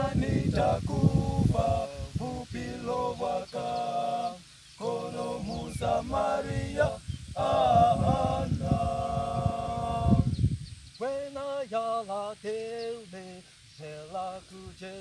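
A small male vocal group singing a cappella in harmony, with held notes broken by short pauses. A low rumble runs under the first ten seconds.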